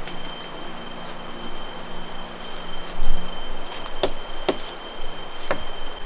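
Rainforest insects droning on a steady high pitch over the rush of a shallow, rocky river, with a few sharp snaps of footsteps on twigs and stones in the second half.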